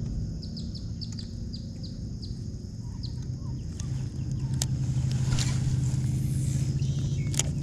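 A bird chirping repeatedly, a quick string of short falling notes over the first couple of seconds, over a low steady hum. The hum grows louder about halfway through as a baitcasting reel is cranked in fast after a cast.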